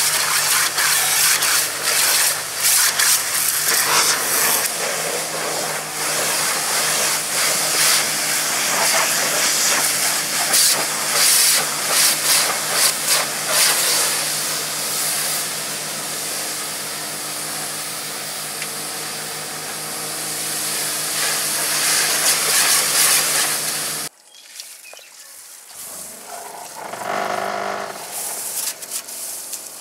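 Electric pressure washer spraying a high-pressure jet of water against a vehicle: a loud, steady hiss with a steady hum beneath. It cuts off suddenly about 24 seconds in, and a quieter, brief hiss follows near the end.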